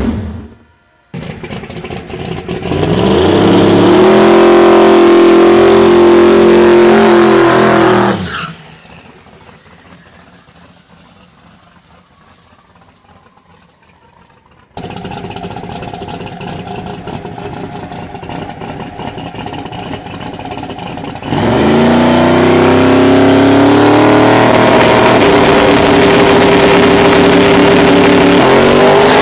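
Drag-racing car engines at full throttle, in two separate takes. One revs up sharply and holds at high rpm for about five seconds, then cuts off. After a quiet stretch, an engine runs steadily at lower revs, and near the end another sweeps up and holds at high rpm.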